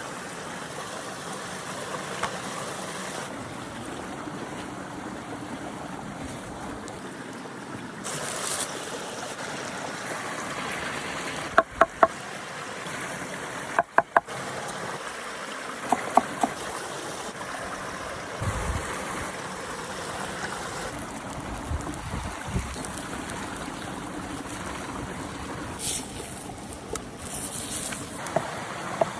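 Chicken sizzling steadily on a hot cooking stone, with a few sharp clicks of a utensil in quick groups of two or three around the middle.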